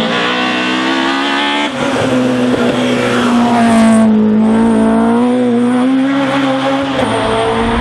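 Small hatchback race car's engine pulling hard at high revs as the car climbs through a bend and passes close by. There is an upshift, a sudden drop in pitch, about two seconds in, and a brief dip again near the end.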